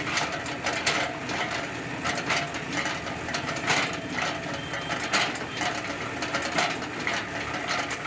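Hydraulic excavator's diesel engine running steadily under load, with frequent irregular metallic clanks and knocks as the bucket and linkage work the soil.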